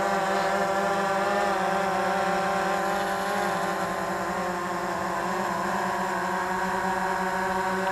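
DJI Phantom 3 Advanced quadcopter hovering close by, its propellers giving a steady buzzing whine that wavers slightly in pitch.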